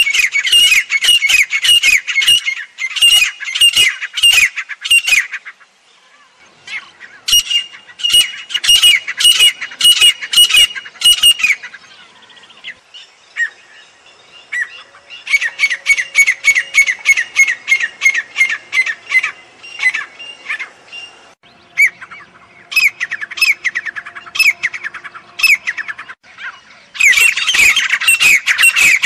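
Grey francolin (teetar) calling: rapid repeated notes in bouts of a few seconds, with short pauses between the bouts.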